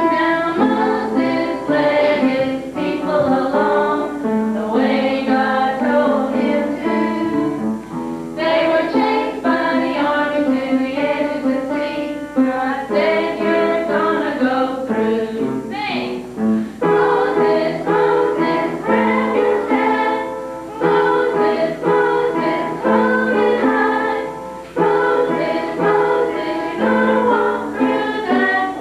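A group of voices singing a song together over instrumental accompaniment, the song carrying on without a break.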